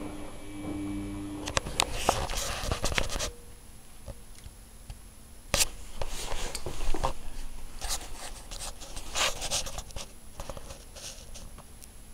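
Samsung WF9700N3W front-loading washing machine on its wool cycle: a steady motor hum that stops about a second and a half in. After it come irregular bursts of swishing and splashing as water and soaked blankets shift in the drum, with quieter gaps between.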